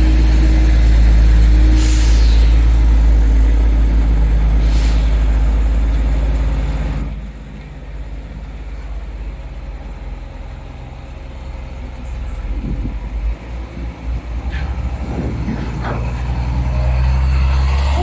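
Diesel engines of heavy tractor-trailer trucks idling with a steady low rumble, with two short hisses about two and five seconds in. The rumble drops about seven seconds in and builds again toward the end.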